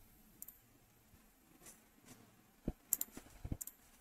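A few faint computer mouse clicks, clustered about two and a half to three and a half seconds in, over quiet room tone.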